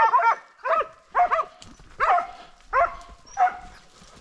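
Hunting dogs barking in a steady string of short barks, roughly one every half second and fading a little near the end, as they bay on a wild boar in the scrub.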